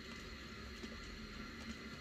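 Faint, steady rumble of a model train running on the layout: small wagon wheels rolling over the rails, with the low hum of the locomotive's motor.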